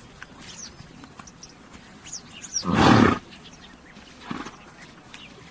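A horse gives a short, loud, rough snort about halfway through, and a softer one just over a second later. Small birds chirp in the background.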